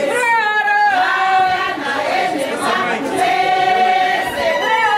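A group of voices singing together without instruments, women's voices prominent.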